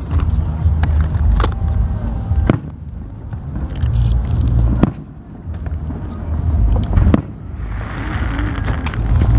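Aerial fireworks display: shells bursting with deep booms and sharp cracks every second or two, and a spell of crackling near the end.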